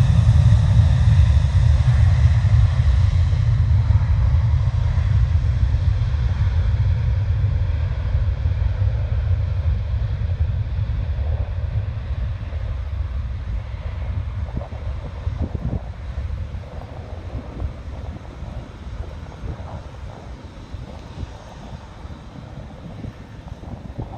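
Wide-body jet airliner's engines rumbling as the aircraft moves away, fading steadily. A high whine dies away over the first few seconds, and the low rumble lingers faintly to the end.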